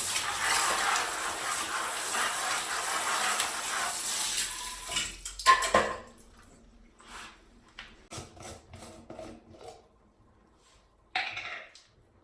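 Water running from a tap into a sink as a steady hiss for about five seconds, then shut off. After that come scattered knocks and clatters of hard items being handled in the sink, and a brief rush of noise near the end.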